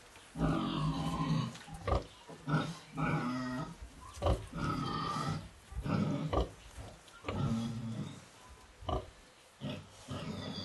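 A sow and her newborn piglets calling while the piglets suckle: a string of short pitched calls, roughly one a second, some low and some higher.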